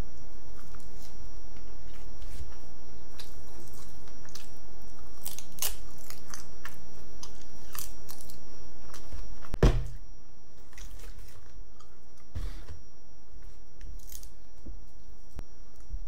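Close-up chewing and crunching of a crisp nori-wrapped sushi bite with raw salmon, with scattered small crackles, and a single thump about ten seconds in.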